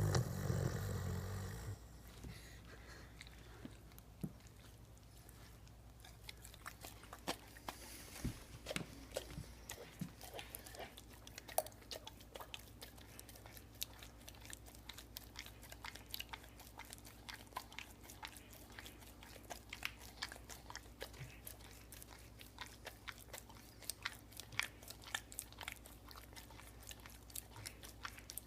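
A sleeping dog snores once, a loud low snore lasting about a second and a half. It is followed by a long run of small, irregular mouth clicks and smacks, like chewing or lip-licking in its sleep.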